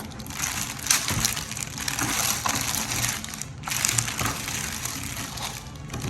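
Packaging being handled during unboxing: irregular rustling and crinkling that comes and goes.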